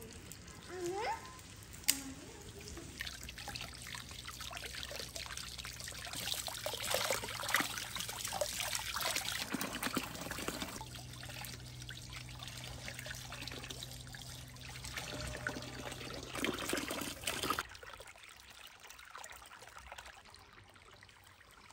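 Water pouring and trickling, splashing steadily for most of the time, then dropping to a softer trickle about three-quarters of the way through.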